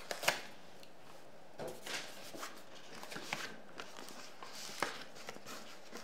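Hands opening a cardboard box and handling its card and paper packaging: scattered light taps, scrapes and rustles, with a sharper tap just after the start and another near five seconds.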